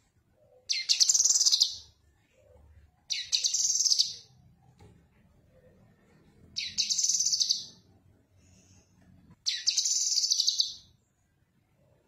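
A caged cucak kinoi, a leafbird, singing four short, high-pitched phrases of rapid trilling notes, each about a second long and a few seconds apart.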